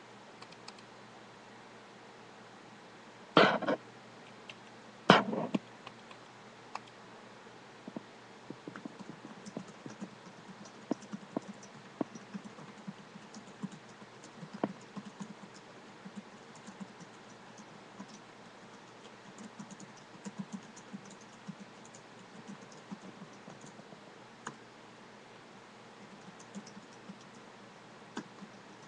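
Typing on a computer keyboard: a long run of light, irregular key taps, after two louder knocks in the first few seconds.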